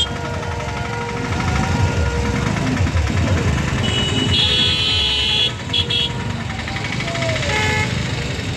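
Motorcycle and car engines running in dense street traffic, with a high-pitched horn held for about a second some four and a half seconds in, followed by two short honks.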